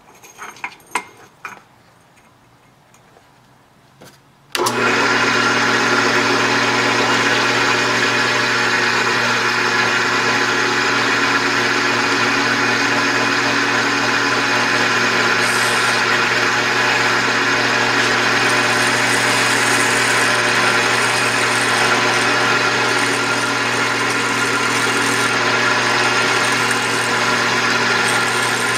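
A few light handling knocks, then about four and a half seconds in a drill press switches on and runs steadily, a small twist drill bit pressing into a cast iron cylinder head casting. The bit is making little headway in the iron.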